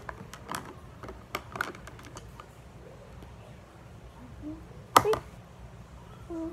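Light scattered clicks and taps of fingers handling a clear plastic container of water, with one louder knock about five seconds in.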